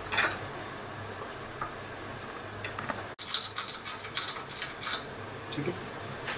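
Pot of water and vegetables heating on a gas burner at full flame: a steady hiss, with a quick run of sharp clicks and ticks from about three seconds in.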